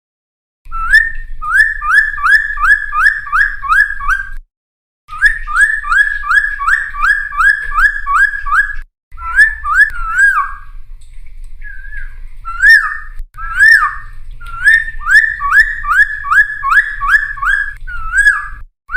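Cucak timor (a friarbird) singing: long phrases of quick, repeated rising whistled notes, about two or three a second, broken by short pauses, with a few varied notes near the middle. A low hum lies under the song.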